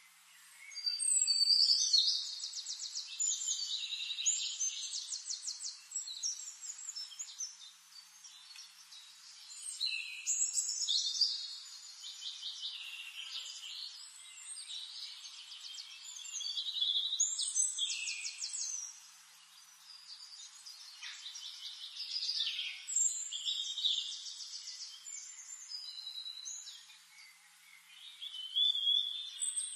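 Songbirds singing in long, high-pitched phrases of rapid trills and chirps, returning every few seconds.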